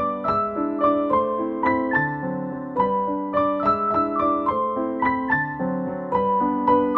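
Background piano music: a gentle melody of single struck notes, about two or three a second, each ringing and fading.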